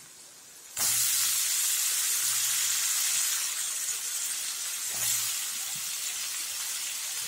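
Hot oil in an aluminium kadai sizzling loudly as cut brinjal and drumstick pieces drop into it, starting suddenly about a second in and easing off slowly. A fresh surge of sizzling comes near five seconds as broad beans go in.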